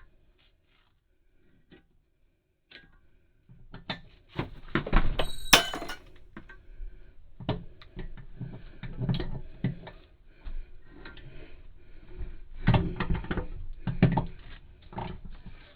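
Residential porcelain toilet being shifted and lowered onto its floor flange and bolt studs, making irregular knocks, thuds and scrapes. There is a sharp click about five seconds in.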